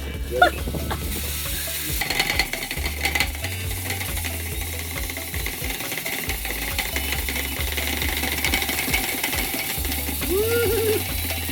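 Dryer vent being cleaned out: steady scraping and rattling inside the duct, over background music with a stepping bass line.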